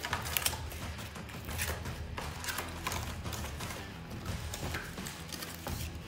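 Cardboard packaging being pulled, bent and worked loose from a toy RC truck by hand: a run of irregular scrapes, creaks and clicks.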